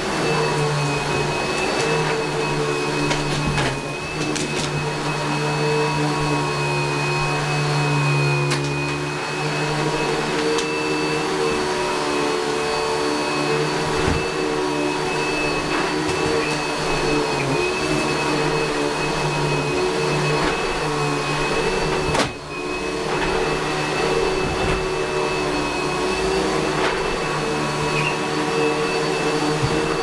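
Yellow Eureka upright vacuum cleaner running steadily on carpet, a constant motor hum with a high whine over it. Scattered faint knocks, with one sharp knock about two-thirds of the way through.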